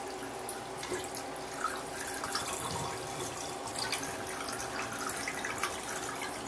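Dirty water being poured out of a Hoover Dual Power carpet washer's recovery tank, a steady pouring and splashing with small scattered ticks.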